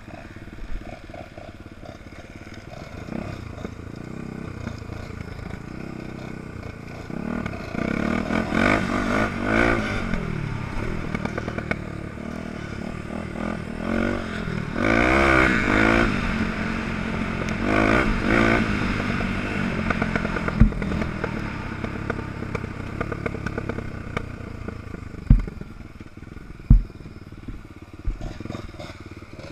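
Dirt bike engine heard from on board while riding a rough trail, revving up and dropping back several times as the throttle opens and closes, over steady wind and ground noise. In the second half come three sharp knocks, the loudest sounds here.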